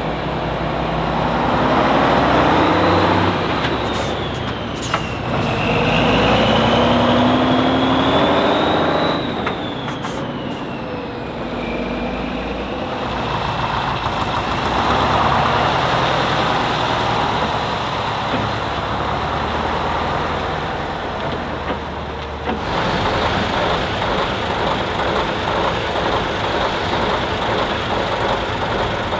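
Heavy truck's diesel engine revving hard under load, its pitch climbing and falling in two long surges. About three-quarters of the way through the sound changes abruptly to a steadier, evenly pulsing engine run.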